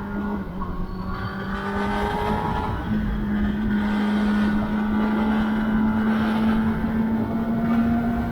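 2021 Kawasaki ZX-10R's inline-four engine and exhaust under way at moderate steady revs, with a brief break in the note about two to three seconds in, as at a gear change, after which the pitch climbs slowly as the bike picks up speed. Low wind rush sounds beneath the engine.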